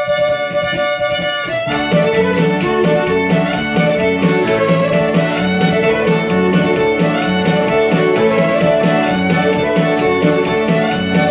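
Old-time polka played live on violin, piano accordion and electric guitar. A chord is held for about the first second and a half, then the band comes in with a steady, quick beat under the melody.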